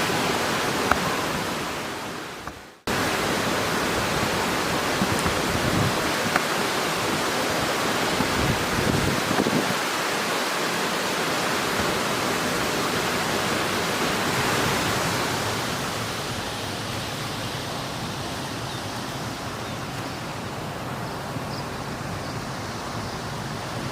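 Water rushing steadily over an irrigation weir, a continuous hiss-like roar. It fades and cuts off briefly about three seconds in, then resumes, a little softer in the last third.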